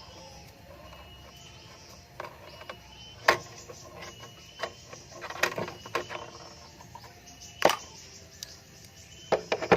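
Sharp knocks and clicks, loudest about a third of the way in, around the middle and near the end, from tools and metal parts being handled during refrigerator pipe work.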